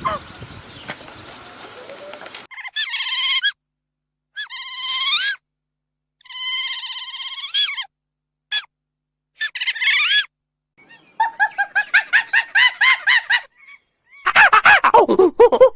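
A bird calling: a string of separate, wavering, high-pitched calls, then a fast chattering run of short calls, and a final loud burst near the end.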